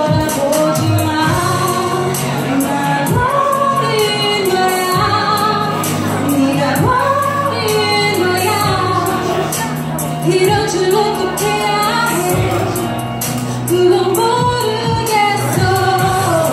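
A woman singing a Korean song into a handheld microphone, her amplified voice over a backing track with a steady beat and some long held notes.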